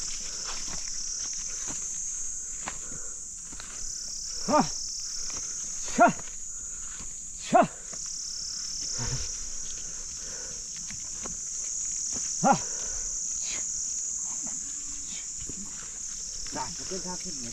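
Steady high-pitched drone of insects in the forest, with four short, sharp calls from the herd or its herder about a second or more apart and a run of smaller calls near the end, over light clicks of steps on a stony path.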